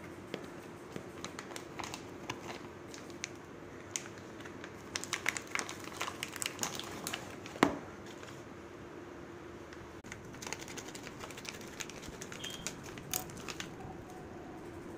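Plastic meat packaging crinkling and crackling as hands handle and open the wrapped pack, in irregular bursts that are busiest and loudest midway, with one sharp crackle. A steady low hum runs underneath.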